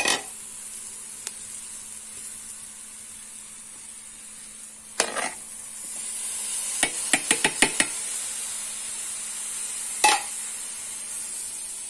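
Fried bacon and sausage sizzling steadily in an aluminium pressure cooker as chopped vegetables are tipped in. Sharp knocks and clinks of metal against the pot come once about five seconds in, then as a quick run of five or six about two seconds later, and once more near the end.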